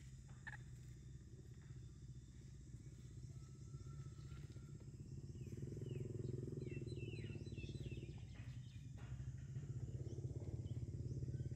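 Low, steady engine hum with a fast pulse, like a motor running at idle, growing a little louder partway through. A flurry of short, high, falling chirps comes over it in the middle.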